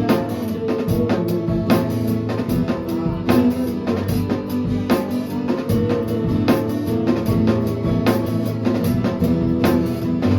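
Live band jamming: a drum kit keeping a steady beat under electric guitar and bass, played loud in a rehearsal room.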